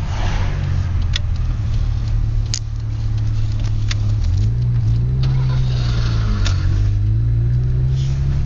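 Volkswagen VR6 engine on its stock exhaust, running steadily near idle. About halfway through it takes a light rev, rising, holding briefly and dropping back.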